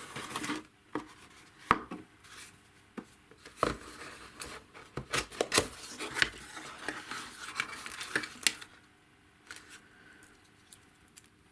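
Hands opening a small box and handling its packaged parts: scattered clicks and taps with bursts of rustling packaging, quieter near the end.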